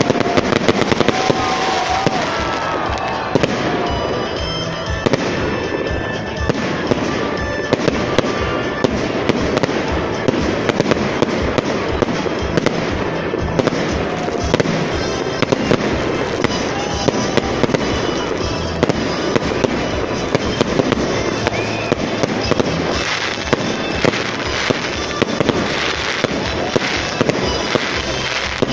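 Fireworks display: aerial shells bursting in rapid, irregular succession, many sharp bangs over a continuous crackle, with no pause.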